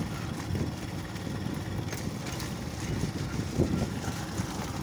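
A motor vehicle's engine running steadily while driving along a rough gravel road, a low rumble with a few brief knocks from the road surface.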